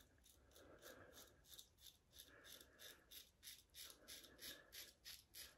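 Rockwell Model T double-edge safety razor with a Gillette 365 stainless blade scraping through lathered stubble on the first pass. It makes faint, short, crisp strokes at about four a second.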